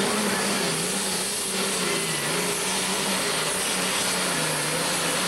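Engine of a 6,000-lb super stock pulling tractor working under full load as it drags the weight sled. The engine note is steady, wavering slightly in pitch, under a heavy noisy rush.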